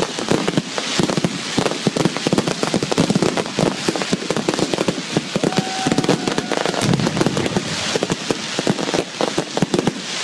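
Fireworks and firecrackers going off in a dense, rapid string of sharp cracks and bangs, many each second without a break.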